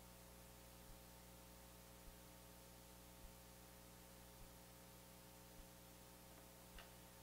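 Near silence: a faint steady hum, with soft low ticks about once a second and one brief faint click near the end.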